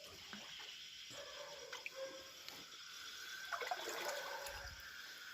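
Faint water dripping and trickling in a shallow pond, with scattered small ticks.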